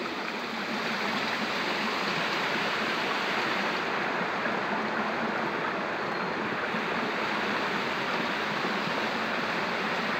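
Steady rushing of a stream's flowing water.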